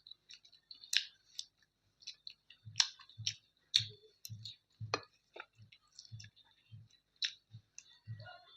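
Close-miked chewing of a mouthful of chicken curry and rice, with wet clicking mouth sounds and, from about three seconds in, a steady chewing rhythm of about two chews a second.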